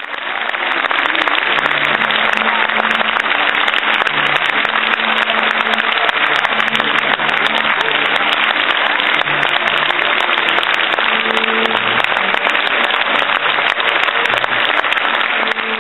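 A theatre audience applauding: dense, sustained clapping that swells in the first second and then holds steady.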